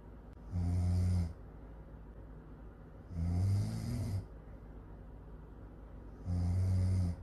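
A person snoring really loud. Three snores come about three seconds apart, each a low buzzing rasp lasting under a second.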